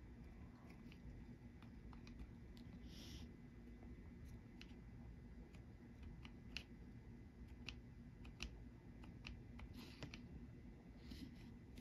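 Near silence: room tone with faint, scattered light clicks and a couple of brief rustles from hands handling small parts and papers.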